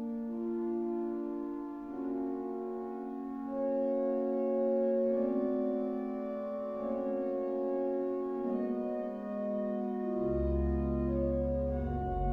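Sauer pipe organ playing held, slowly changing notes in several voices; deep pedal bass notes come in about ten seconds in.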